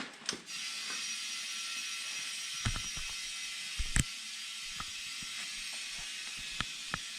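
Compressed air hissing steadily into an ATV tyre to seat its bead, with a few sharp clicks and pops as the bead snaps onto the rim; the loudest pop comes about four seconds in.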